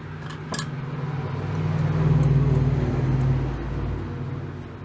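Low rumble of a passing vehicle that swells, peaks a couple of seconds in and fades away, over a steady low background hum.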